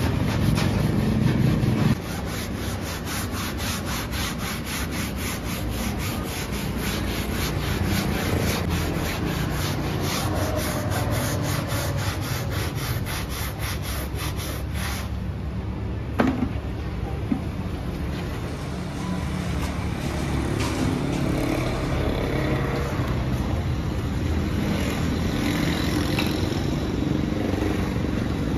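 Hand-held scrub pad rubbing back and forth over a car seat's fabric upholstery to work out a stain, in a steady rhythm of about four strokes a second that later turns irregular. Near the end there is street traffic.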